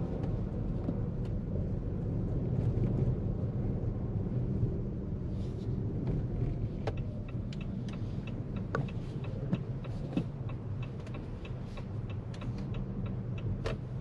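2023 Jeep Compass 1.5 e-Hybrid driving through snow: a steady low rumble of tyres and drivetrain, with scattered sharp ticks and clicks from about halfway through.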